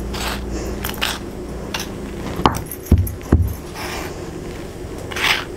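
Steel spoon scraping and stirring coarsely ground peanut masala in a stone mortar, in short gritty strokes, with three dull knocks against the stone about halfway through.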